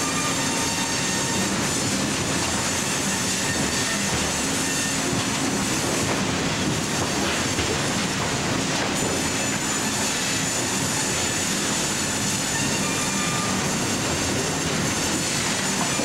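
Sawmill machinery running in full operation: a steady, dense clatter of log conveyors and chain decks, with thin steady whines of saws and motors through it.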